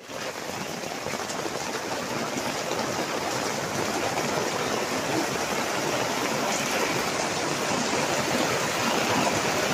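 Heavy rain pouring down, heard from under a fabric gazebo canopy: a steady, dense hiss of falling rain that builds slightly in loudness.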